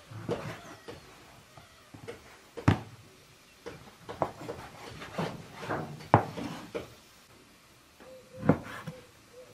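Knife chopping raw meat into large chunks on a wooden cutting board: irregular knocks of the blade striking the board, with a few harder chops in the middle and near the end.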